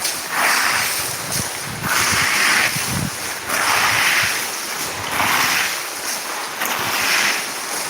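Hail being cleared from the ground in repeated scraping, swishing strokes, about one every second and a half, with a few dull knocks between strokes.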